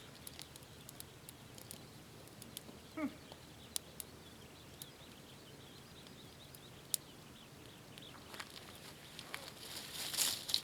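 Wood campfire crackling, with sparse sharp pops and a denser run of crackles near the end.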